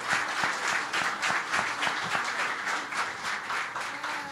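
An audience applauding: dense, steady clapping from many hands that starts to die down near the end.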